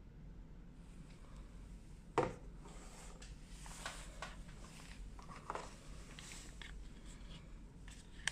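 Light handling of a phone's retail box and its accessories: soft rustling and scraping of cardboard and packaging, with a sharp knock about two seconds in and a softer one about five and a half seconds in.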